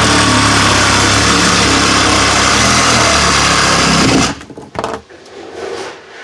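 Reciprocating saw with a fine-tooth metal-cutting blade running steadily as it cuts straight down through drywall, stopping suddenly about four seconds in.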